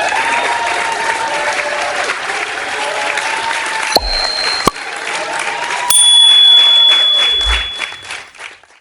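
Crowd applauding and cheering, with two bright ding-like tones about 4 and 6 seconds in. It is loudest after the second ding and cuts off just before the end.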